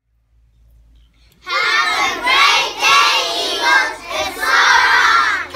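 A group of young children shouting together in unison, starting suddenly about a second and a half in and going on in several loud, rhythmic pulses.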